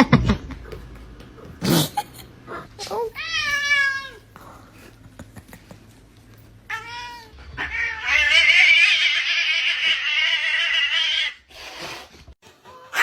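A cat meowing: a short meow about three seconds in, another near seven seconds, then one long, loud drawn-out call lasting about three seconds.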